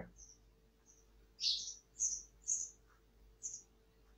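Pen scratching on paper in short, high-pitched strokes about two a second, beginning about a second and a half in.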